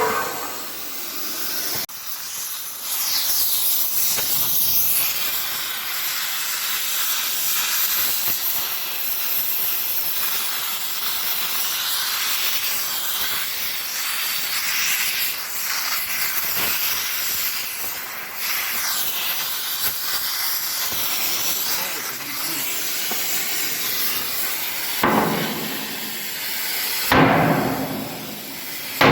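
Steady high-pitched hissing with scattered crackles from hot metalwork, cutting or welding, on a steel blade. It breaks off briefly near the end.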